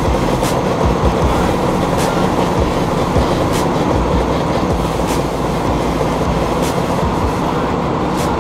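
Polaris 800 two-stroke twin snowmobile engine on a dyno, with Crank Shop trail pipes, running steadily. A faint sharp tick comes about every one and a half seconds.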